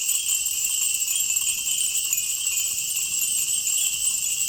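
Many Japanese wind chimes (fūrin) ringing together in a dense, steady, high-pitched tinkle.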